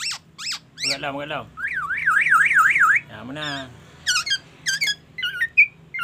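Black-naped oriole singing a mimicking song: sharp falling whistles, then a fast rising-and-falling wavering passage copying an ambulance siren, with a couple of lower, harsher notes and short whistled phrases in the style of a white-rumped shama near the end.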